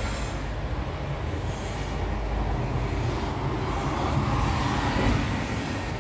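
Steady low rumbling background noise, swelling slightly about five seconds in.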